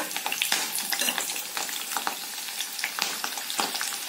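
Peeled garlic cloves frying in hot oil and ghee with bay leaf, cinnamon and cloves, the tempering for the dish: a steady sizzle with frequent small pops and crackles.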